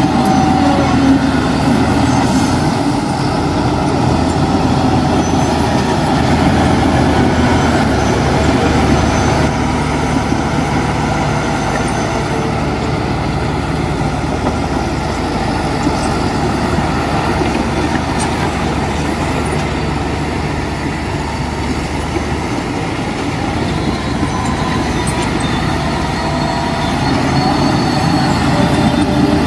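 Heavy diesel construction machinery running steadily. The engine note changes about two-thirds of the way through and grows louder again near the end.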